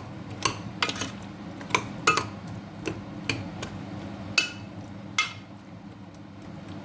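A utensil knocking and scraping against a cooking pot while potatoes are stirred. It makes about ten irregular clinks, each with a short ring, and they come closer together in the first half.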